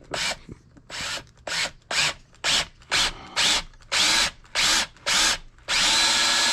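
A handheld power tool run in short bursts, about two a second, then held on for one longer run near the end.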